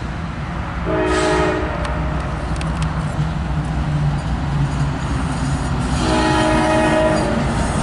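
CSX diesel locomotive's multi-chime air horn sounding twice, a short blast about a second in and a longer one near the end, over the steady low rumble of the passing locomotives.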